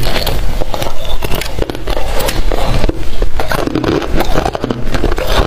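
Freezer frost crunched and chewed in the mouth, close to a clip-on microphone: a dense run of small crackles and crunches.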